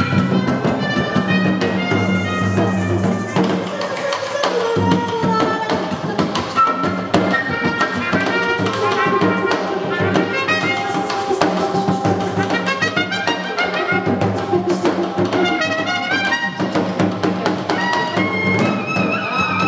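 Live improvised jazz: a wind instrument plays quick, shifting melodic lines over wooden mallet percussion.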